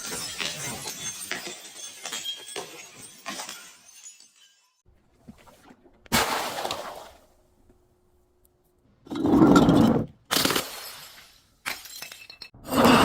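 Glass breaking and shattering: a run of small crackling clinks for the first few seconds, a sharp crash about six seconds in, then several louder crunching bursts near the end.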